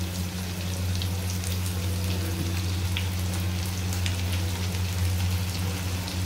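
Raw potato wedges frying in hot oil with onions in a kadhai: a steady sizzle with scattered small crackles and pops, over a steady low hum.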